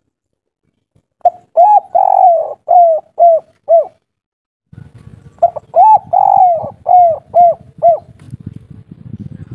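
Spotted dove cooing two full song phrases. Each phrase is a couple of quick coos and a longer drawn-out coo, then three short closing coos, the 'kuk 3' song type. From about halfway through there is a low rumbling noise behind the second phrase.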